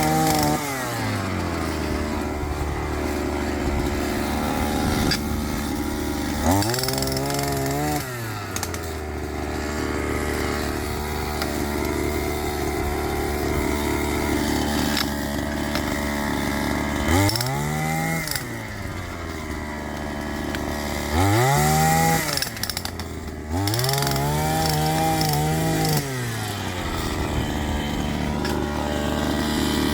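Small gasoline engine of a DCM-EB1 multipurpose engine breaker, idling and throttled up four times; each time the revs rise, hold for a second or two, then drop back to idle.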